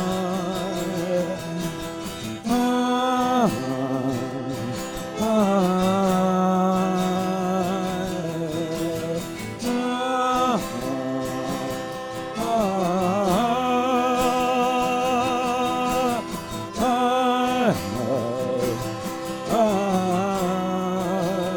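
Live band music: a melody of long held notes with a wavering vibrato, each one to two seconds long with short breaks between, carried by voice or a melodic instrument.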